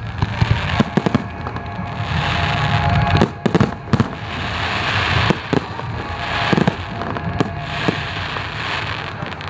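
Fireworks display: aerial shells bursting in irregular sharp bangs, about a dozen of them, over a continuous rushing, crackling noise.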